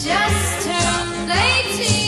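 1957 pop record: a woman singing a melody with band backing over a steady, evenly repeating bass beat.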